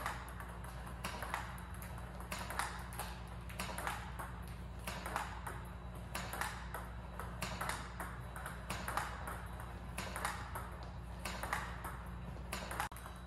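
Table tennis balls clicking in a steady rally rhythm: a Power Pong robot feeds fast smashes to the backhand that bounce on the table and are blocked back off the paddle, giving paired clicks about every second and a half.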